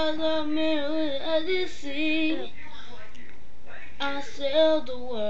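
A young girl singing unaccompanied, holding long wavering notes without clear words. She stops about halfway through and starts singing again near the end.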